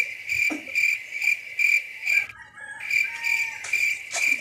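High, even-pitched insect chirping, repeated about three times a second, with a short break about two seconds in.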